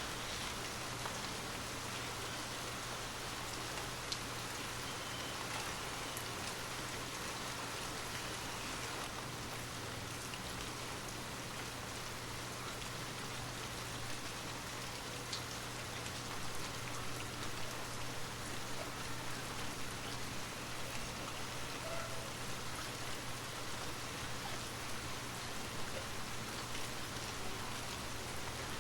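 Steady rain falling, with scattered sharper drop ticks, over a low steady hum.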